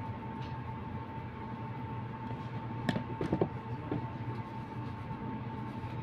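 Steady room hum with a constant high whine; a few light clicks and knocks about three to four seconds in.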